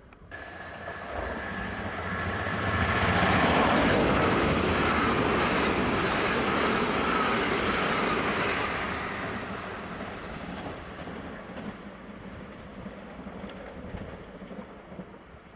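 Southern Class 377 Electrostar electric multiple unit passing through the platform at speed without stopping. The rush of wheels and air builds over the first few seconds, is loudest as the carriages go by with a whine that drops in pitch, then fades as the train runs away.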